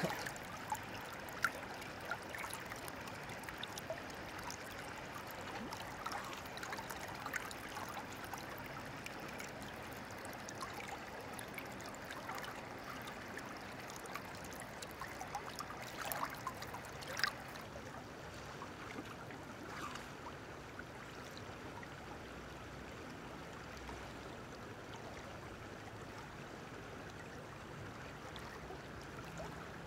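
River current flowing and lapping, a steady low rush of water, with a few brief faint clicks scattered through it.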